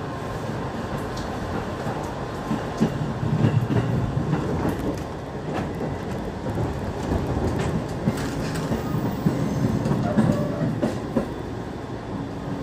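JR 205 series electric commuter train running along the line, heard from inside the carriage: a steady rolling noise from the wheels on the rails, with scattered short clicks and knocks.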